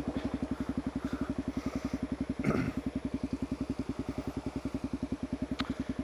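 Single-cylinder dual-sport motorcycle engine idling with an even, quick thump, about twelve beats a second. A brief louder sound cuts in about halfway through, and a click comes near the end.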